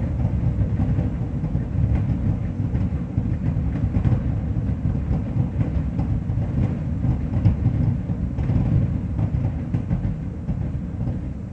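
Distant aerial fireworks barrage: many booms blurring into a continuous rolling rumble, with faint crackle above it.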